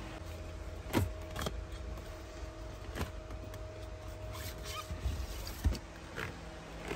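Cardboard-backed chainring packs being shuffled and pulled from a cardboard carton: a handful of scattered taps and scrapes, the sharpest about a second in and near the end, over a low steady hum.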